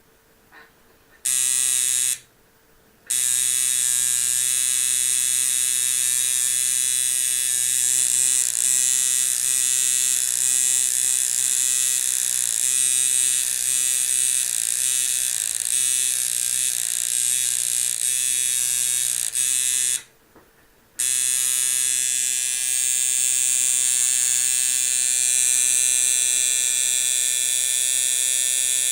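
Coil tattoo machine built with antique doorbell coils, running with a steady electric buzz. It switches on about a second in, stops briefly, starts again, and cuts out for about a second near two-thirds of the way through before running on.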